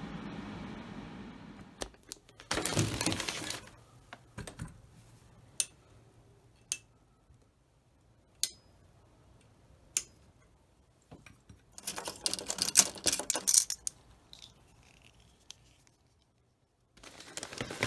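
Handling noises: scattered sharp clicks and taps, with bursts of rustling or crinkling about two and a half seconds in, around twelve seconds in, and again near the end.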